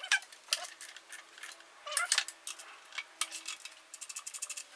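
Hand tools and a socket clinking against metal, then a ratchet clicking in quick, even strokes near the end, as the torque converter bolts are worked loose.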